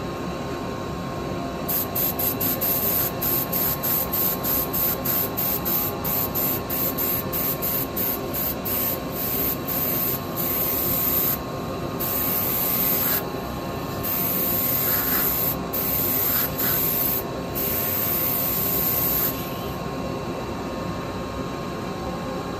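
Airbrush spraying black paint in short hissing bursts, about three a second, then in longer bursts of a second or two, over a steady machine hum.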